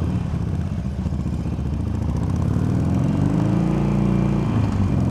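Harley-Davidson Sportster V-twin engine idling, with one brief rev that rises and falls back about three seconds in.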